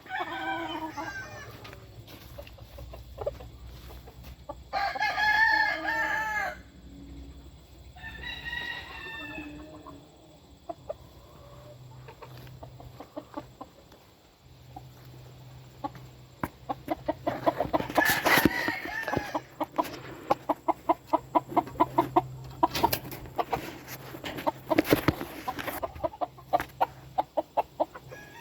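Game roosters crowing, three crows in the first ten seconds, each about a second and a half long. A long run of quick clicks and clucking follows in the second half.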